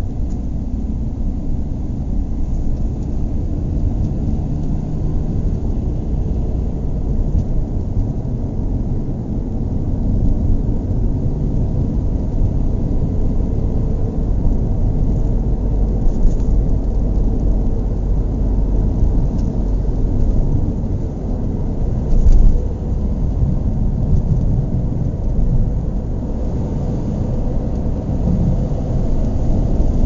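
Car engine idling with a steady low rumble, with one brief louder swell about two-thirds of the way through.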